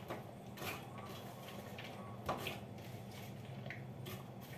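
Chopped fresh green beans pushed by hand from a plastic colander into a stainless steel pot: a few soft, scattered rustles and light taps, over a faint steady hum.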